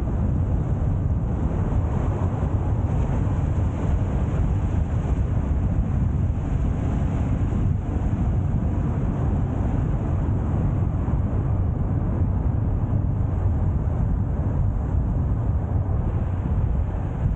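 A car driving along steadily: a constant low rumble of engine and tyres on the road, with some wind buffeting the microphone.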